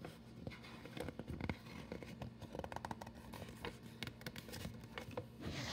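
Pages of a picture book being turned and handled: faint paper rustling with scattered soft clicks.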